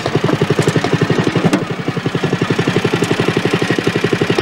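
Small go-kart engine idling steadily with a fast, even putter.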